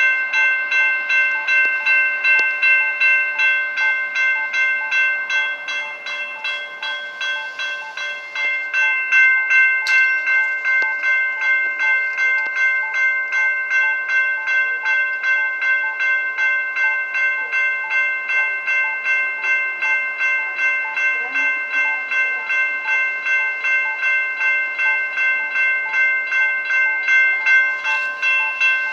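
Railroad crossing warning bell ringing in rapid, evenly repeated strikes, signalling an approaching light-rail train. It is briefly softer a few seconds in.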